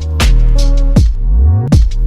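Electronic background music with a heavy beat: deep bass drum hits that drop in pitch, sharp percussion and sustained bass notes.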